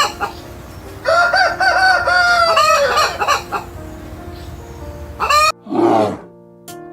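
A rooster crowing once, one long wavering cock-a-doodle-doo lasting about two seconds, over soft background music. A short rough sound follows near the end.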